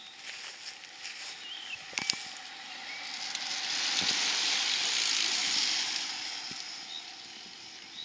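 A group of racing bicycles passes close by. The hiss of their tyres on the asphalt swells to a peak about four seconds in, then fades away over the next few seconds.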